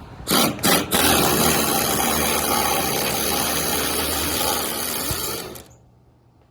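LEMATEC LE-ID413 mini pneumatic impact driver: two short blips of the trigger, then a steady run of about four and a half seconds with a loud hiss of exhaust air, stopping near the end.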